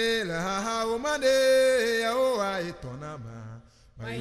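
A solo voice singing a chant-like melody in long held notes that slide up and down between pitches. The singing dies away about three and a half seconds in, and a lower voice starts just before the end.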